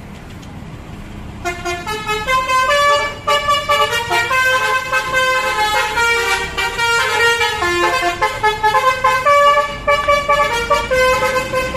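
Telolet basuri bus horn playing a fast melody of short, bright notes, starting about a second and a half in, over a low engine rumble.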